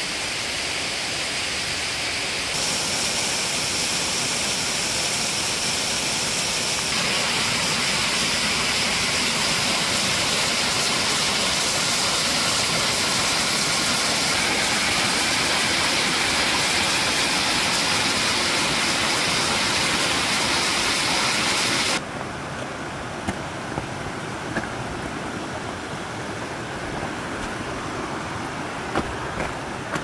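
Water rushing and splashing down the rock cascade of a partly frozen mountain waterfall: a steady hiss that steps louder twice in the first seven seconds. About 22 seconds in it drops abruptly to a quieter wash, with a few faint ticks.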